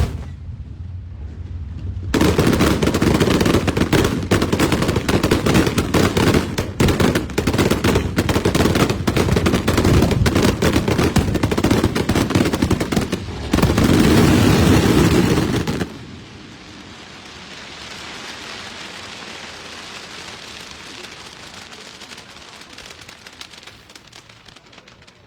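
Fireworks barrage: a single bang, then about fourteen seconds of dense, rapid-fire bangs and crackling that grows loudest just before it stops abruptly. A softer, even hiss follows and fades.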